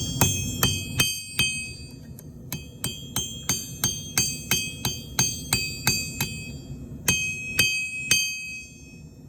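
Hammer forging a small iron piece on an anvil, each blow ringing with a bell-like tone. A few blows, a short pause, then a quick run of about three blows a second, and three slower blows before the hammering stops.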